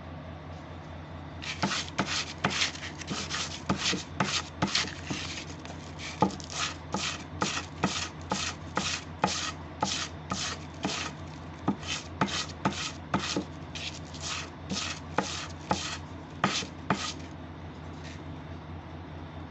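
Steel knife blade stroked back and forth on a sheet of sandpaper laid flat on a bench, sharpening it: about two short scraping strokes a second, starting about a second and a half in and stopping a couple of seconds before the end.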